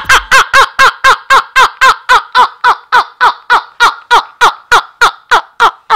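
A man laughing hard and without a break: a long, even run of high-pitched "ha" pulses at about four a second.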